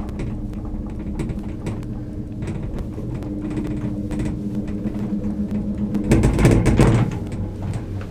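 Gondola lift cabin running along its cable, heard from inside the cabin: a steady hum with light rattles and clicks. About six seconds in comes a louder clattering rumble for about a second, as the cabin passes over the sheave wheels of a lift tower.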